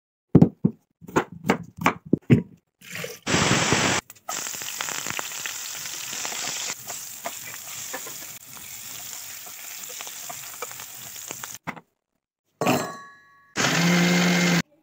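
A quick run of sharp crunchy clicks. Then potatoes frying in hot oil in a pan: a steady sizzle lasting about eight seconds that cuts off suddenly. Near the end an electric mixer grinder runs for about a second, a steady motor whine.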